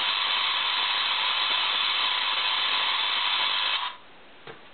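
Spark gap Tesla coil running steadily at minimal power, then switched off: the steady noise cuts off suddenly about four seconds in.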